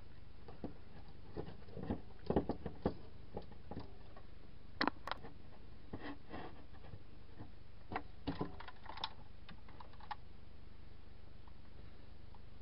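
Scattered small clicks and taps of pliers and a metal C-cell battery holder being handled on a workbench, irregular and spaced by pauses, over a low steady hum.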